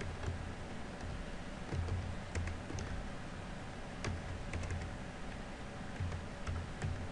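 Computer keyboard typing: scattered keystroke clicks at an irregular pace as a short name is entered.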